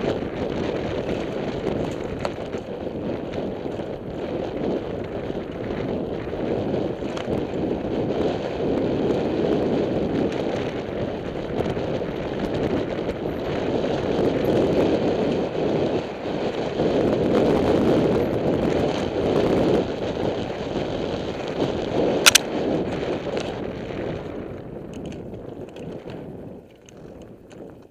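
Wind rushing over a helmet camera's microphone and knobby tyres rumbling on a dirt fire road as a Trek Session 88 downhill mountain bike rolls at speed. A single sharp clack about 22 seconds in is the loudest moment. The rush fades away over the last few seconds.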